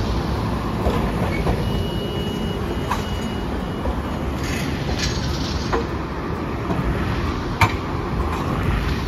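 Hiroden 800-series streetcar rolling past over street-embedded track and pointwork, with a continuous low rumble and a few sharp wheel clacks over rail joints and crossings, the loudest near the end. A thin, steady high squeal lasts about two seconds, starting a couple of seconds in.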